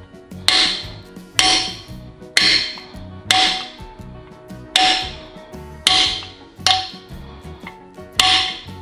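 A 2.5-pound mallet striking a socket held against a brass core (freeze) plug, driving the plug into a Mopar 440 engine block: eight sharp metallic strikes about once a second, each with a short ring.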